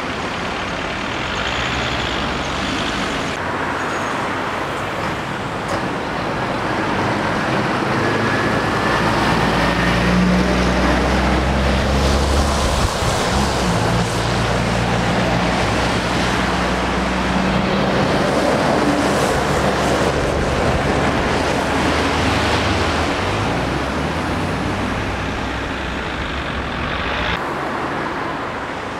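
Roundabout traffic with a heavy lorry's diesel engine running close by. Its low drone swells about a third of the way in and fades again near the end, over steady tyre and traffic noise.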